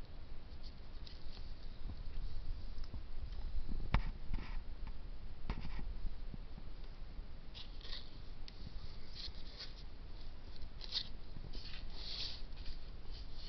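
Hands handling a rooted lemon-tree air layer, its plastic wrap and potting soil: scattered soft scratches, rustles and clicks. There is a sharper click about four seconds in, and the rustling grows busier in the second half.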